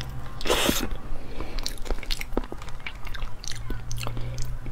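A person chewing and biting soft durian flesh close to the microphone, with many short wet mouth clicks and a louder noisy moment about half a second in.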